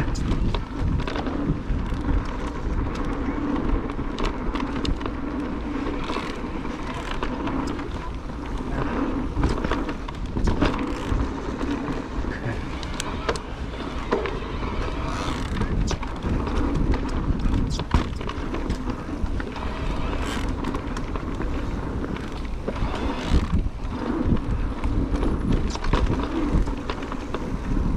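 Cube Stereo Hybrid electric mountain bike ridden over a bumpy dirt trail: steady rolling noise with frequent knocks and clicks from the bike over bumps, and a steady low hum.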